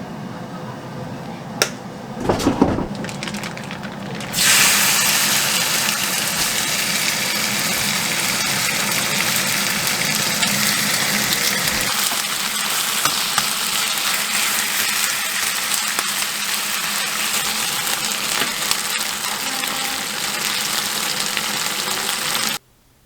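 Food sizzling in hot oil in a pan. A few knocks and clatters come first, then the sizzle starts suddenly and loudly about four seconds in, eases off slowly, and cuts off abruptly near the end.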